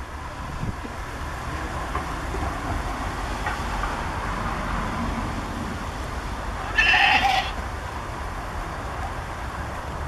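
A goat bleats once, briefly, about seven seconds in, over a steady low rumble of background noise.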